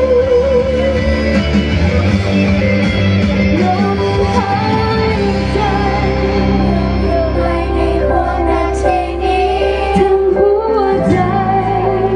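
A woman singing a song live into a microphone over instrumental accompaniment. It opens on a held note with vibrato, and the bass part of the accompaniment changes near the end.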